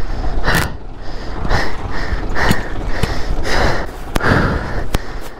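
A person breathing hard and fast close to the microphone, a string of short heavy breaths about one or two a second: out of breath from exertion at high altitude.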